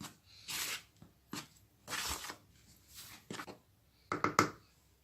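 Dry flour, sugar and salt being stirred together in a bowl: a series of short rustling, scraping strokes.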